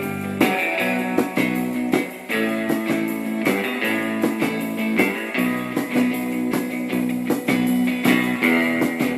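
Band demo music led by strummed guitar chords, with a steady rhythm of strokes.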